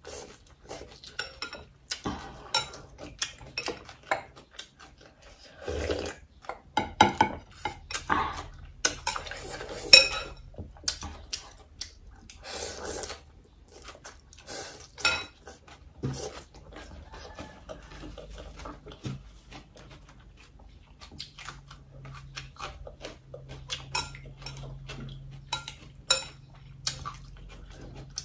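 Metal chopsticks clinking and scraping against a glass bowl of noodle soup, with a few longer stretches of slurping noodles and chewing.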